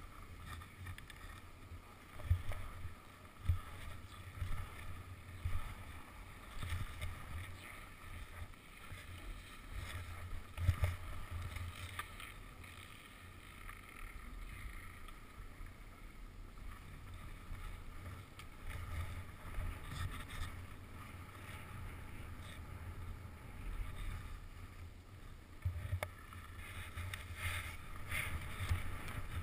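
Skis sliding and scraping over snow during a downhill run, a muffled rushing with irregular low thumps from bumps in the snow, the strongest about two, three and a half, and eleven seconds in.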